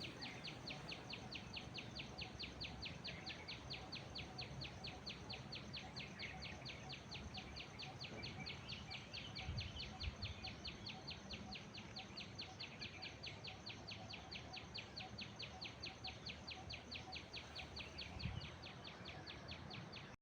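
Outdoor ambience: a steady high chirping that repeats about five times a second, with a few faint bird calls over it. Low thumps come about ten seconds in and again near the end.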